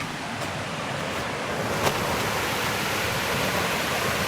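Rushing water of a mountain stream and small waterfall, a steady rush that grows louder over the first couple of seconds. A single sharp click about two seconds in.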